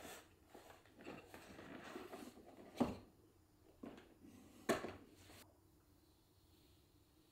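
Cardboard packaging of an Apple iMac being handled: cardboard sliding and rustling, with two sharp knocks about two seconds apart and a softer one between them.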